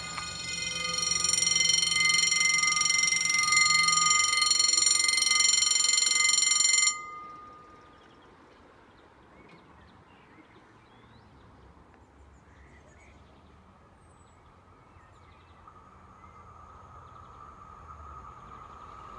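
Level-crossing warning bell ringing loudly and steadily, then cutting off sharply about seven seconds in. Near the end, an approaching double-deck electric train is heard as a rising hum that grows louder.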